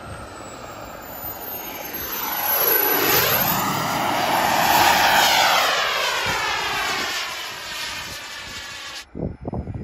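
Turbine engine of a large radio-controlled jet passing low: a rushing roar with a high whine that swells to a peak from about three to five seconds in, the whine falling in pitch as it goes by, then fading. The sound cuts off suddenly near the end.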